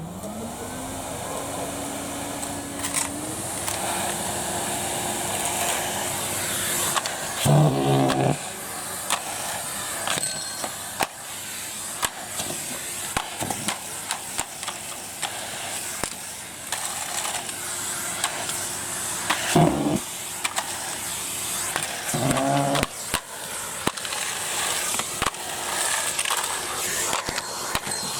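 Numatic Henry vacuum cleaner switched on, its motor whine rising as it spins up and then running steadily with suction hiss. Many sharp clicks and rattles run through it as debris is sucked up. Two short pitched sounds come about eight seconds in and again near twenty-two seconds.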